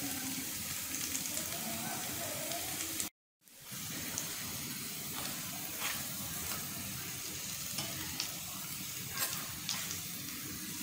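Pumpkin-and-lentil patties shallow-frying in a little oil over medium-low heat, the oil sizzling steadily with scattered small crackles. The sound drops out briefly about three seconds in.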